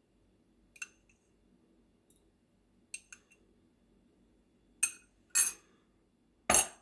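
Kitchen utensils clinking against glass and dishware: a few light, sharp ticks, then three louder knocks near the end, the last the loudest.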